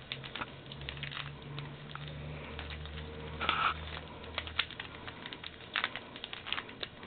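Plastic Rubik's cube being twisted quickly to scramble it: a run of irregular clicks and rattles from the layers turning.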